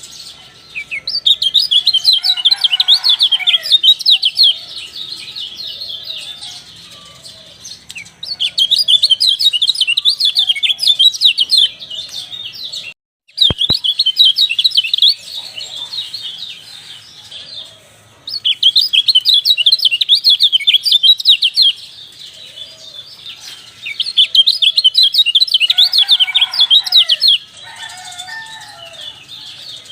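Recording of a kecial (white-eye) singing: bursts of rapid, high chattering song about three seconds long, repeated every five or six seconds. It cuts out briefly about thirteen seconds in.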